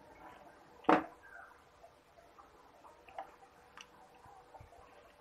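A single sharp knock about a second in, a small shaker bottle being set down. It is followed by faint scattered clicks and squishes of fingers mixing rice and curry on a steel plate.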